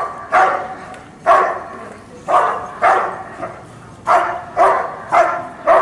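A German shepherd barking at a helper in the hide, a hold-and-bark guarding the decoy in a protection exercise. There are about eight loud barks, one every half-second to second.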